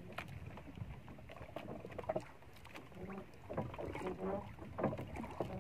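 Water lapping against a small wooden outrigger canoe, with scattered knocks on the hull and a voice in the background in the second half.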